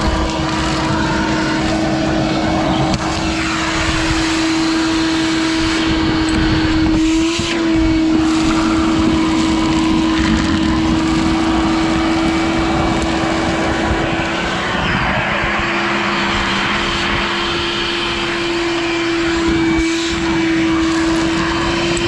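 Craftsman 6¼-horsepower shop vac running steadily, a loud motor whine over the rush of air, with a brief wobble in pitch about seven seconds in and the pitch edging up near the end.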